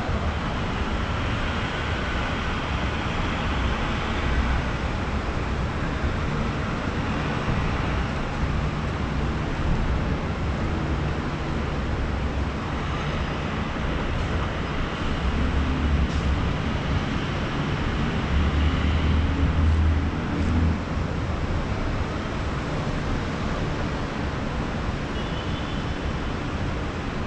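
City traffic heard from high above a busy traffic circle: a steady blended roar of engines and tyres, with heavier vehicles swelling up a couple of times past the middle.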